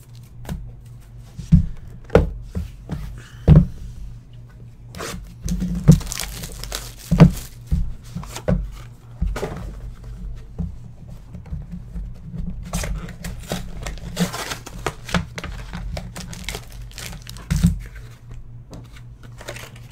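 Foil trading-card packs crinkling and being torn open by hand, with sharp knocks as packs and cards are handled and set down on the desk.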